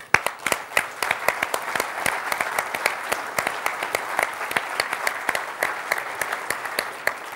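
Audience and panelists applauding a speaker: steady applause of many hands, beginning abruptly the moment the speech ends.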